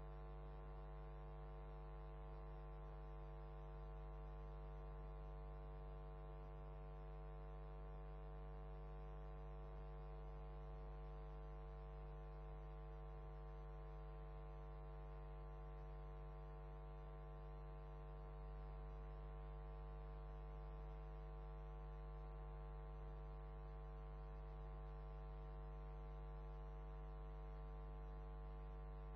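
Steady, faint electrical mains hum with a stack of even overtones, unchanging throughout; no other sound.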